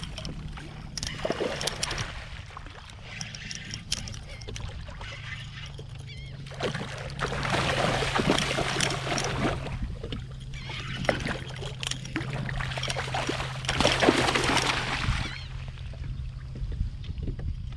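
Water splashing and sloshing around a kayak, louder in two spells, one from about a third of the way in and one around three quarters through, over a low steady hum.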